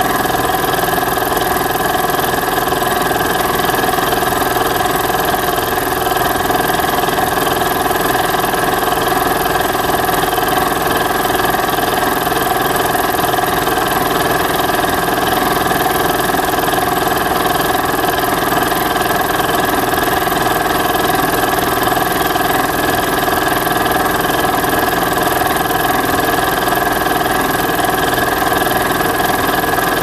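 Meiji air compressor running steadily, pumping up its tank, with the pressure rising from about 4 to about 7.5 kg/cm². The sound holds an even, constant hum and whine with no change in speed.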